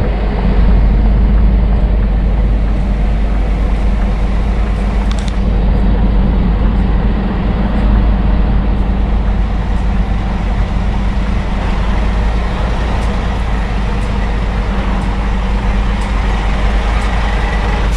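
Scania R truck's diesel engine running steadily at low revs while the articulated truck is slowly manoeuvred into a tight parking space.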